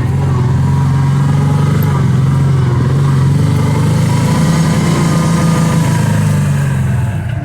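Kawasaki Teryx 800 side-by-side's V-twin engine running at a steady moderate throttle while driving, its pitch rising a little midway, then easing off just before the end.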